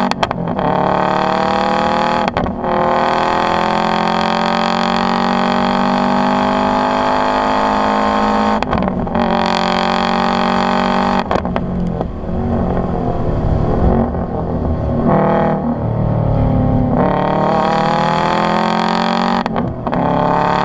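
Subaru STI's turbocharged flat-four running through an Agency Power cat-back exhaust under hard acceleration. The pitch climbs steadily in each gear, with brief breaks at the gear changes. Midway there is a rougher, uneven stretch before it pulls up again.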